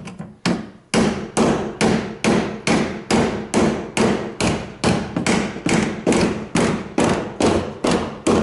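Large hammer beating out the bent steel wheel arch of a Nissan Bluebird: a steady run of heavy blows, about three a second, each with a short metallic ring. A few lighter knocks come before the rhythm starts about a second in.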